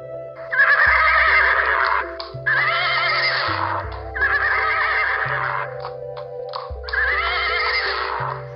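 Horse whinnying four times in a row, each call about a second long with a shaky, wavering pitch, over steady background music. Short sharp knocks fall between the calls.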